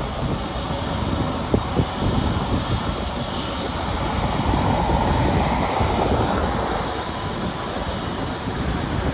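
Jet engine noise of a landing Airbus A350-941, its Rolls-Royce Trent XWB engines giving a broad rushing sound that swells about halfway through and then eases. Wind rumbles on the microphone underneath.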